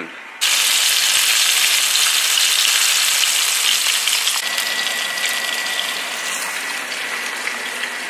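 Floured squirrel pieces deep-frying in hot canola oil in a pan: a loud, steady sizzle that starts suddenly just under half a second in and eases off slightly over the following seconds.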